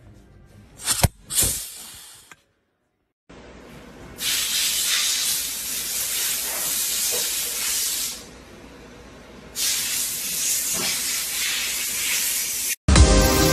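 Two sharp clicks, then a steady hiss in two long stretches with a quieter gap between them.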